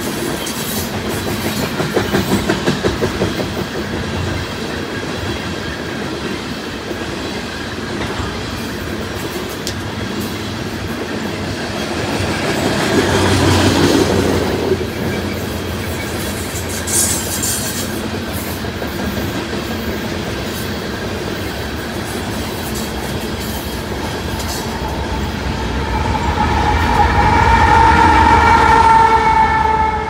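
Loaded coal hopper cars of a freight train rolling past, steel wheels clacking over the rail joints with a few brief squeals. About 25 seconds in, a locomotive air horn starts sounding a steady chord of several notes and grows louder.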